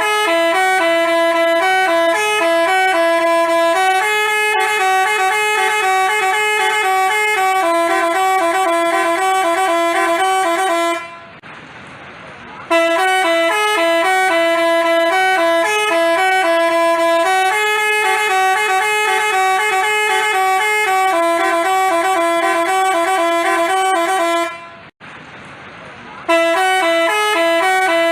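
Telolet basuri musical bus horn playing a quick tune of horn notes, in three phrases with short breaks about 11 and 25 seconds in.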